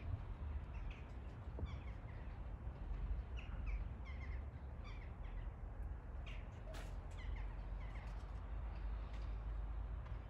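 Birds calling in short, repeated notes over a steady low rumble.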